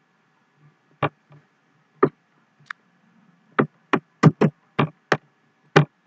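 Sharp clicks of a computer mouse and keyboard being worked, about ten in all: single clicks about one and two seconds in, then a quick irregular run in the second half.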